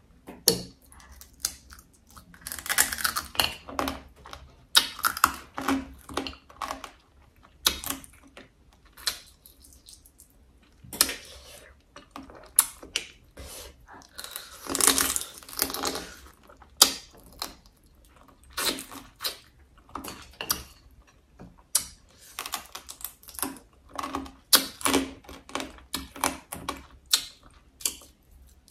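Close-up crunching and cracking of braised crab shell being bitten and chewed, in irregular clusters of sharp crackles.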